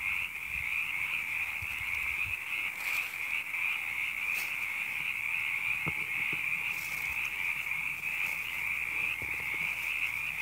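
A spring chorus of many frogs calling at once: a steady, high-pitched shrill that never lets up.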